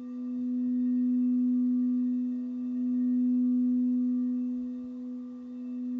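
Crystal singing bowl sounding one steady, pure tone with a faint octave above it. The tone slowly swells and fades in long pulses.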